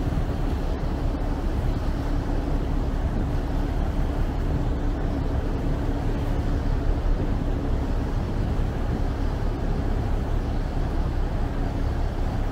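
Chao Phraya Express river boat underway: its engine runs at a steady cruising drone with a low hum, over the even rush of water along the hull.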